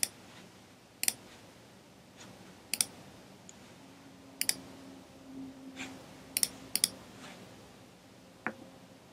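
Computer mouse button clicks, sharp and short, about seven in all, spaced a second or two apart with a close pair near the middle.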